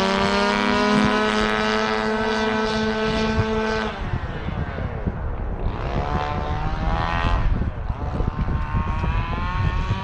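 Small two-stroke engine of a gas-powered 1/5-scale RC truck revving. It holds at high revs with a steady pitch for about four seconds, then drops off, and rises and falls again with bursts of throttle.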